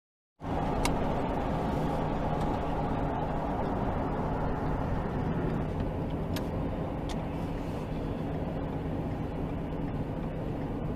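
Steady in-cabin engine and tyre noise of a car driving along a road, picked up by a dashcam microphone. It starts abruptly about half a second in, with a low steady hum throughout.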